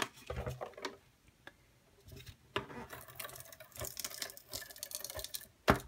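Handheld adhesive tape runner being picked up and run along paper: scattered light clicks and papery rustling, with a sharper click near the end.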